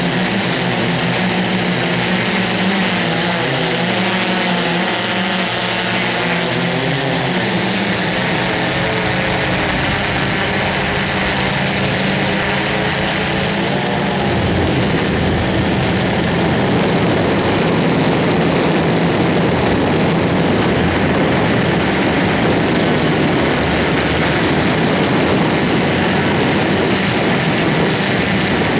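Steady motor noise whose pitch wavers. About halfway through it gives way to a louder rushing noise.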